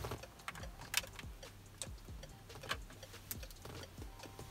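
Irregular small clicks and taps of a screwdriver and long-nose pliers against the hard plastic back of a car's climate control panel as T5 dashboard bulbs are twisted into their sockets, the sharpest click about a second in.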